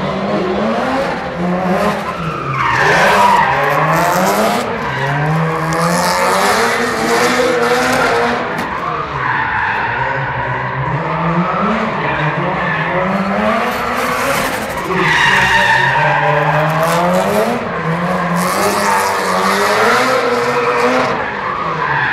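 Subaru drift cars' engines revving up and falling back over and over as they slide around the course, with tyre screech coming in bursts several times.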